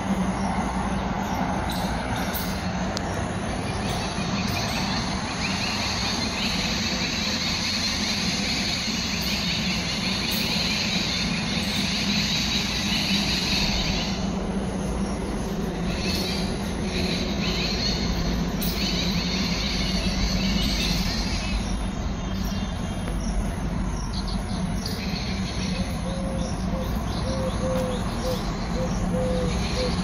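Steady rumbling noise with a low hum, vehicle-like, under a high repeating insect trill. Near the end comes a run of short, evenly spaced low hooting notes.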